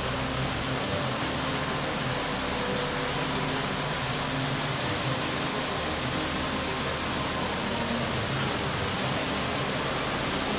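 A waterfall's falling water, as a steady, even rush.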